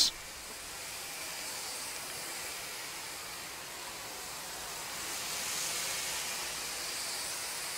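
Steady hiss of a degreasing cleaning agent being sprayed onto an HVAC coil, growing a little louder about five seconds in.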